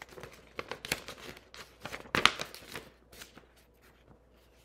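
Paper and cardstock rustling with light taps and clicks as craft-kit pieces are handled, the loudest tap a little over two seconds in, dying away near the end.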